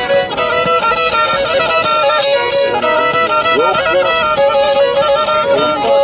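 Black Sea kemençe bowed in a quick folk tune: the melody moves rapidly above a steady held drone note.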